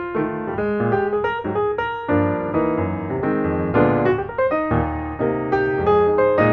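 Background piano music: notes played in a quick, flowing run over sustained chords.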